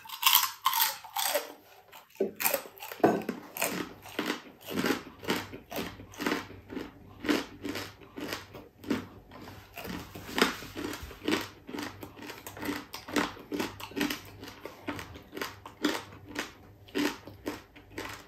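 Close-up crunchy chewing: crispy deep-fried boneless chicken-feet chicharon being crunched between the teeth at about two crunches a second.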